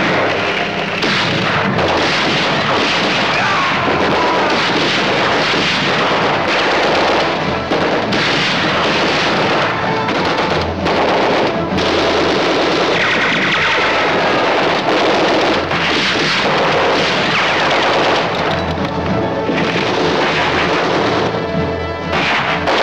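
Old film battle soundtrack: dramatic music over gunfire and explosions.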